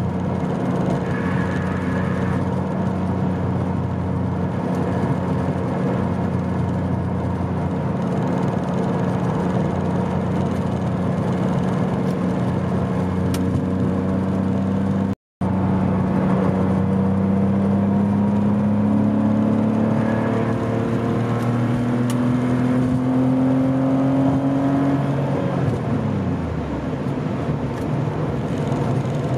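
Porsche 911 Carrera 3.2's air-cooled flat-six running at highway cruising speed, heard from inside the cabin with steady road noise. The sound cuts out for an instant about halfway through. After that the engine note climbs steadily for several seconds, then falls away sharply as the revs drop near the end.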